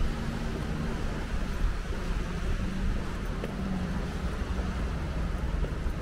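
Wind buffeting the microphone: a steady low rumble with a faint low hum under it.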